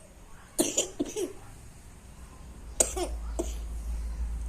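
A small child coughing in short fits: three quick coughs about half a second in, then two or three more about three seconds in.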